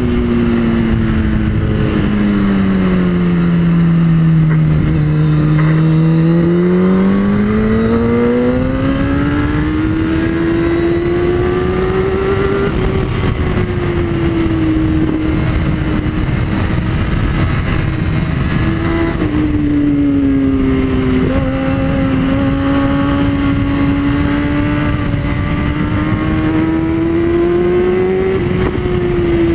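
Superbike's inline-four engine heard onboard at track speed over constant wind rush: the revs fall smoothly as it slows for a corner, climb back as it accelerates out, drop abruptly at a quick gear change about two-thirds in, then rise slowly and fall again near the end as it brakes.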